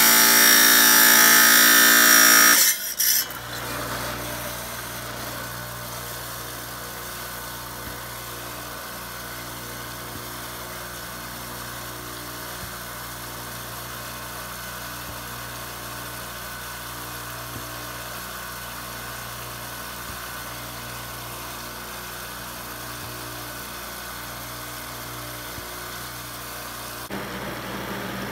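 Chicago Electric wet tile saw grinding through a rock slab for the first couple of seconds, then the blade spinning free with a steady motor hum. The sound grows a little louder again near the end as stone meets the blade.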